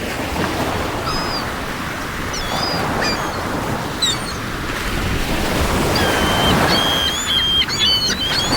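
Sea surf washing steadily onto the shore, with seagulls calling over it: a few short calls in the first few seconds, then a run of calls near the end.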